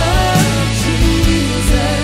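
Live worship band playing a contemporary Christian song: a woman sings the lead into a microphone over drums, bass and guitar, with regular drum hits.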